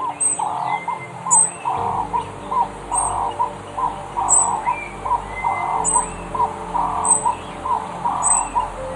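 Birds calling in a regular repeating pattern, about once a second, with short high chirps over lower rounded call notes.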